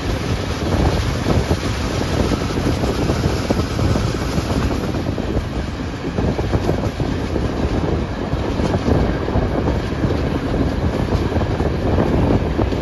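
A train running along the track: a loud, steady rumble of wheels on rails.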